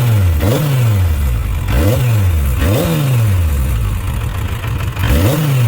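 Suzuki RF900's inline-four engine idling and being revved in quick throttle blips, each rising sharply and then dropping back to idle, about four times. One cylinder is misfiring, and its carburetor has just been adjusted leaner. The engine sounds a little better, but that cylinder is still not firing well.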